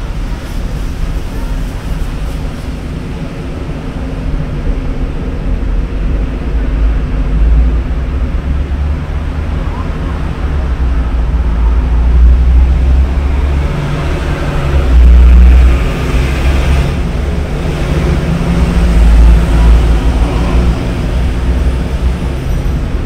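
Outdoor road-traffic ambience: a heavy low rumble that rises and falls. It swells in the second half as something passes, then settles again near the end.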